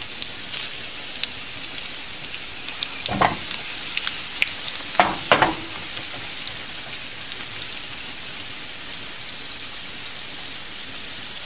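Hot oil sizzling and crackling in a pan as a tempering of onion, green and dried red chillies, curry leaves and cumin seeds fries, the cumin browning as the baghar comes ready. A few louder short noises stand out about three and five seconds in.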